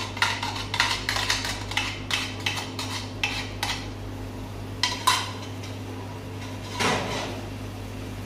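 Utensil clinking and scraping against a bowl as red sauce is emptied into a frying pan: a quick run of clinks, about three a second, then after a pause a few single knocks of kitchenware. A steady low hum runs underneath.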